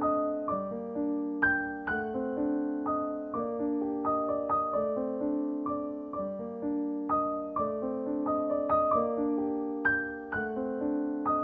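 Background music: a gentle piano tune, notes struck one after another and each dying away, over held chords.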